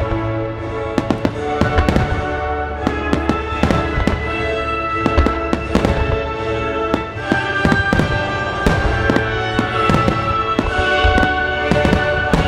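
Fireworks shells bursting one after another in a rapid barrage of sharp bangs, with music playing steadily underneath: a music starmine synchronized to a soundtrack.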